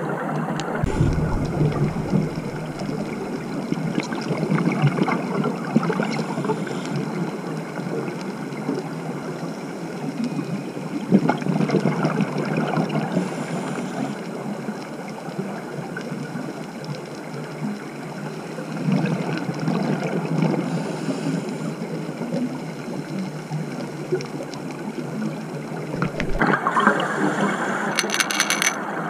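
Underwater sound through a camera housing: scuba regulator exhaust bubbles gurgling, swelling every several seconds with each breath, over a steady hiss. A few sharp clicks come near the end.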